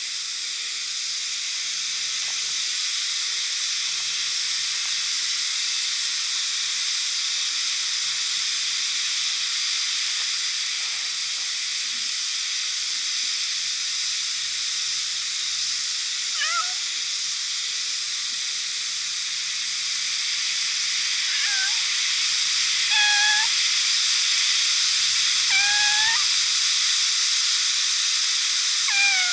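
A tortoiseshell cat meowing five times in the second half, short rising-and-falling calls, over a steady high-pitched hiss.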